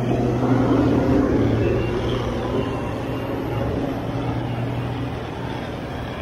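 Heavy diesel engines of a loaded wheeled earthmoving scraper and the bulldozer pushing it from behind, running steadily hard under load as the scraper is shoved through soft mud.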